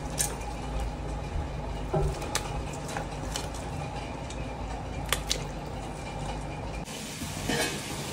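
Pot of watery biryani masala bubbling on the stove as it comes to the boil, a steady bubbling with scattered small pops.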